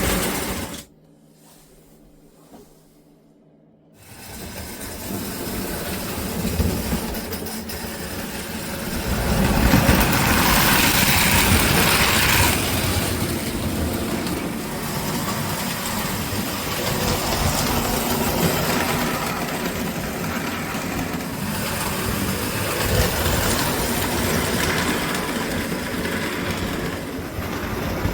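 American Flyer 322 S-gauge toy steam locomotive running on the layout track: electric motor and wheels on the rails. The locomotive is running smoothly after an overhaul. Quieter for about three seconds near the start, loudest about ten to twelve seconds in.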